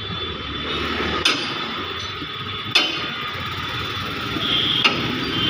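Hammer tapping on a car body panel during dent repair: three sharp strikes, about one and a half to two seconds apart, over steady workshop background noise.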